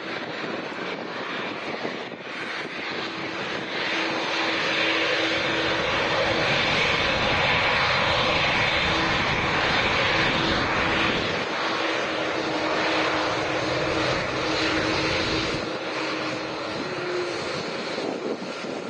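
Boeing 787-8 Dreamliner's Rolls-Royce Trent 1000 turbofans running at taxi power as the airliner rolls close past: a steady jet rush with a constant hum. It swells as the aircraft comes nearest and eases off near the end.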